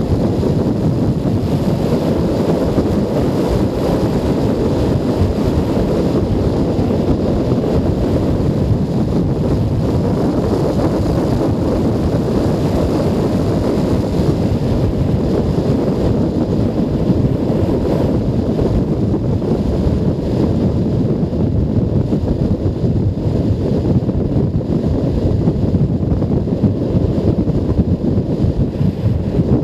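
Loud, steady wind rush buffeting a helmet-camera microphone on a moving Junak M12 Vintage 125 motorcycle, with road and engine noise blended in beneath.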